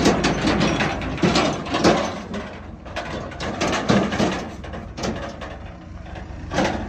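Backhoe loader at work: a diesel engine runs steadily under a rattle of irregular metallic clanks and knocks, typical of the bucket and arm linkage working.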